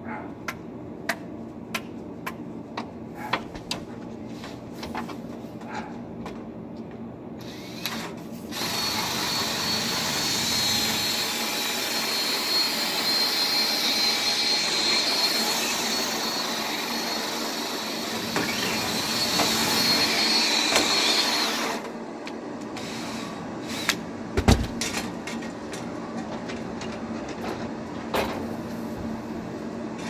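Light clicks and taps of flexible dryer-vent cleaning rods, then a cordless drill spinning a rotary vent brush runs steadily with a high whine for about thirteen seconds, driving lint out of the duct. After it stops come more knocks and one sharp thump.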